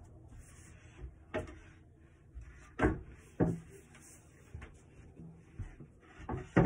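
Wooden knocks and bumps from a small wooden dining table being handled during assembly, about five separate knocks, the loudest at the very end.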